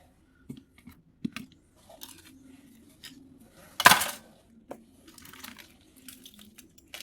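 A knife cutting the metal legs of an IC chip on a circuit board: scattered small clicks and scrapes, with one louder sharp snap about four seconds in.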